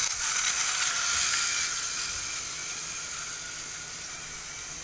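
Battery-powered toy train's motor and gears whirring with a faint whine as it runs along plastic track, fading as it moves away.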